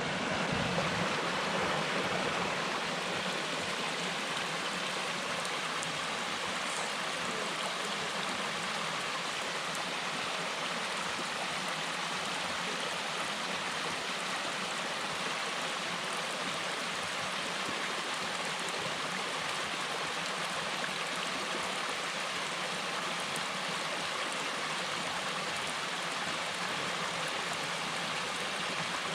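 A small waterfall, a steady rush and splash of falling water.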